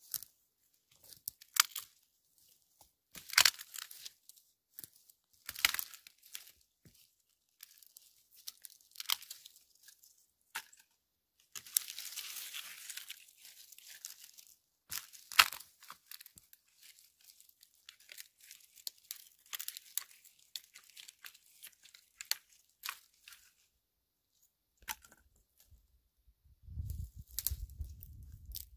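Dry dead wood cracking and snapping in irregular sharp breaks, with the rustle of brush in between; the sharpest snap comes about halfway through. A low rumble joins near the end.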